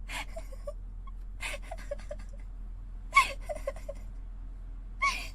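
A woman's short, sharp gasping breaths, about four of them a second or more apart, the loudest a little past three seconds in. They are the catching breaths of a sneezing fit, close on a binaural dummy-head microphone.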